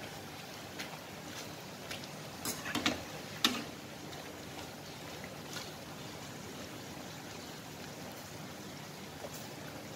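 Puri frying in hot oil in a pan, a steady sizzle. A few short clicks of a metal spatula against the puri and pan come between about two and a half and three and a half seconds in.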